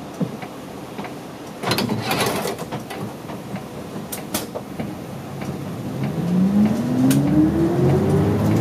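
City bus pulling away from a stop. A short burst of hiss comes about two seconds in and a few clicks follow. Then the engine note rises steadily in pitch and gets louder as the bus accelerates, from about six seconds in.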